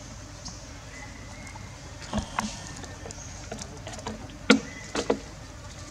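Several short, sharp crackles and clicks of dry leaves being handled by a foraging baby macaque, a pair about two seconds in and a cluster near the end, the loudest about four and a half seconds in, over a steady low background rumble.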